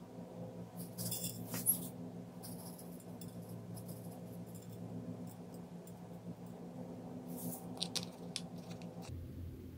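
Roasted sesame seeds sprinkled onto a ceramic plate of broccoli and shrimp, landing with light patters in a few short bursts.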